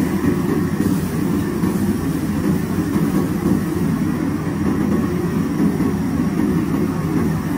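Steady low roar of a commercial gas wok burner firing under a wok of simmering sauce.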